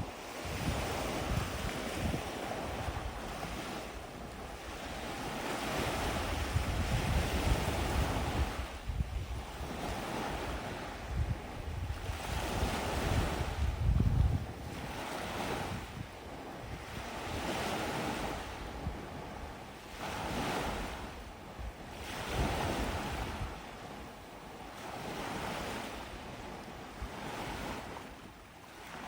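Gentle waves washing onto a sandy beach, swelling and easing every few seconds. Wind rumbles on the microphone now and then.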